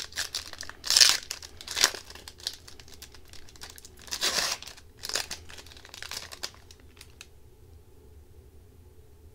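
Foil wrapper of an Upper Deck hockey card pack being torn open and crinkled by hand, in a series of crackling rips, loudest about one, two and four seconds in, then falling quiet after about seven seconds as the cards come out.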